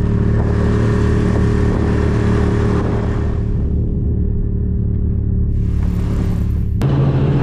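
Snowmobile engine running steadily under way, with an abrupt change to a different, rougher engine sound near the end.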